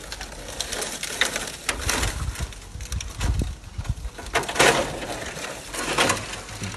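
Burnt corrugated metal roofing sheets and charred debris crunching and scraping in several short bursts as they are handled and stepped on.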